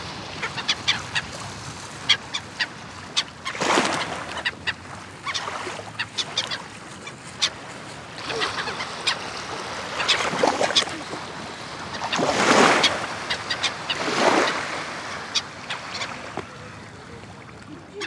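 A flock of gulls and swans on the sea calling, with many short cries. Under them, small waves wash onto the shore, louder about four seconds in and twice more later.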